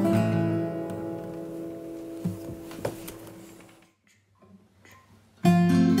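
Acoustic guitar music: the end of one song rings out and fades away over about four seconds, with a couple of small clicks along the way. After a short near-silent gap, the next song comes in loudly with guitar about five and a half seconds in.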